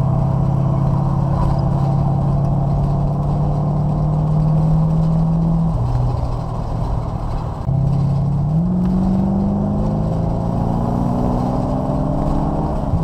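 Racing car's engine heard from inside the cabin, working hard and holding a steady note, then falling off about six seconds in. It then climbs steadily in pitch as the car accelerates, and drops back near the end.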